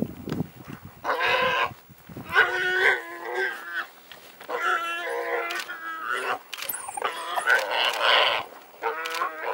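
Warthog squealing in distress while African wild dogs bring it down: a string of about seven drawn-out, high squeals, each under a second.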